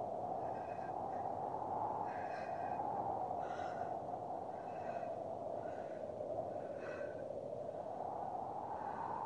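A woman's distressed breathing through an open mouth, a breath about once a second, over a steady, slowly wavering hum.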